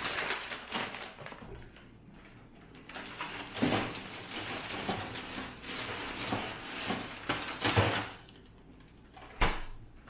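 Handling noises indoors: irregular rustling and clattering in bursts, with one sharp knock near the end.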